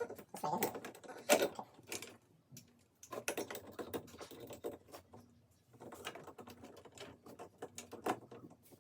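Irregular light clicks and taps of a screwdriver and small parts being handled while wiring terminals on a fire alarm device, with a couple of brief pauses.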